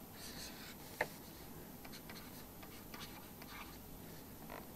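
Faint scratching of a pen writing in short strokes, with a single sharp tap about a second in.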